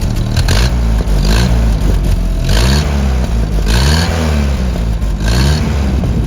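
Mitsubishi CJ3B-J3 Jeep's F-head four-cylinder petrol engine running at idle while stationary, blipped up and back down about four times.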